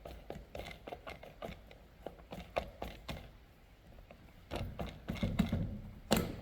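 Tools and parts of a Stihl string trimmer clicking and rattling as it is taken apart, with a busier stretch of handling about two-thirds in and one sharp click near the end.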